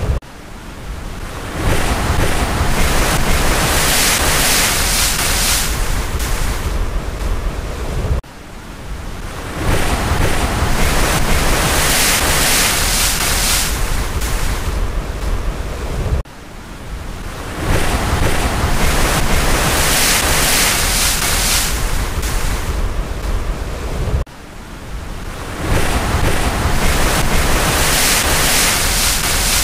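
Ocean surf: each wave swells up over a second or two and washes on steadily for several seconds, then cuts off abruptly, about every eight seconds, four times.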